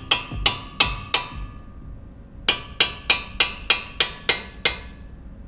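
Sharp, ringing hammer blows on steel, knocking at a wrench on the rear brake caliper bracket's 19 mm bolts to break them loose. Four quick strikes, a pause of about a second, then eight more at about three a second.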